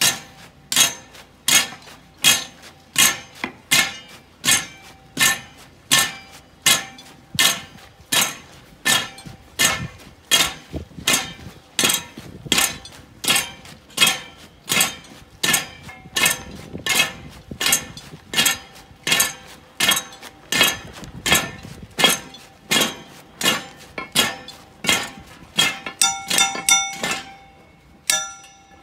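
Sharp metallic clacks in a steady marching beat, about one every three-quarters of a second, keeping time with the carriers of a procession float; a few strikes near the end ring on briefly.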